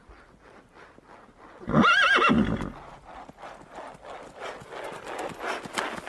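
Horse hooves clip-clopping in a steady rhythm, growing louder, with one loud, wavering whinny about two seconds in; the hoofbeats carry on after it.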